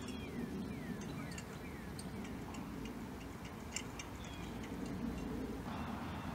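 Outdoor street ambience: a steady low rumble, with a small bird giving a quick run of five or so short falling whistled notes in the first second and a half, then a few scattered faint ticks. Near the end the background changes to a brighter hiss.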